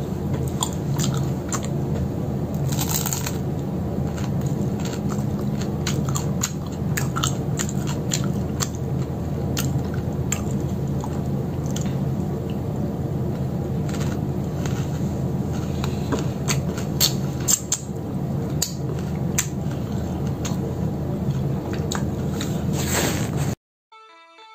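Close-up mouth sounds of a person eating chocolate: chewing, biting, lip smacks and finger licking, as many small sharp clicks over a steady low hum. About a second before the end it cuts to quiet music with separate notes.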